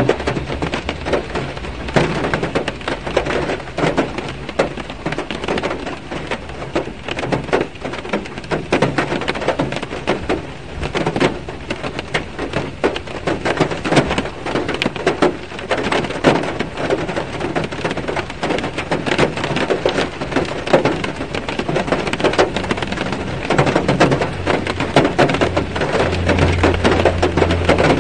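Rain pattering densely on a car's windshield and roof, heard from inside the car as many small irregular taps. A low hum comes in near the end.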